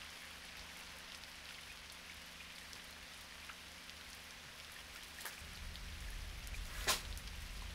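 Steady hiss over a low hum, with a few faint clicks. One sharp knock comes about seven seconds in, as a scuffle begins.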